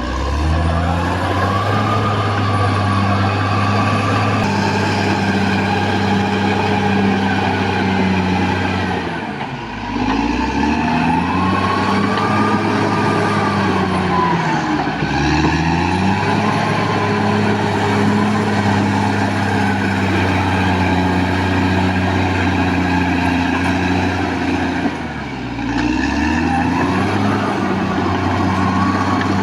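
Caterpillar D6R XL bulldozer's diesel engine running under load. Its pitch sags and recovers three times, with a whine rising and falling over it.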